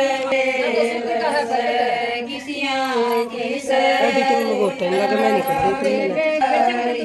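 A group of women singing a traditional wedding folk song together in chorus, sung for the groom's oil-anointing (tel chadhana) ritual. Several voices hold long notes, with the singing dipping briefly a couple of times.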